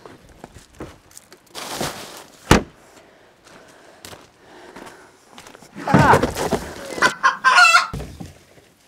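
A rooster crowing about six seconds in, followed by clucking. Earlier there is a single sharp knock.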